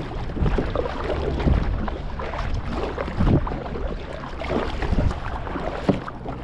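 Choppy sea water sloshing and slapping irregularly against a kayak's hull, with wind buffeting the microphone.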